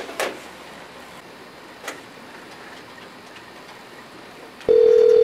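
Quiet room tone with a faint click about two seconds in. Near the end a desk telephone sounds one steady electronic ring tone lasting just under a second.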